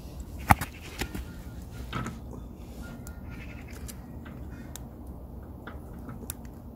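Small metal clicks and ticks from a steel bicycle chain and KMC slotted quick link being handled, as the link plate is worked onto the pin. The sharpest click comes about half a second in, with scattered lighter ones after it, over a steady low outdoor hum.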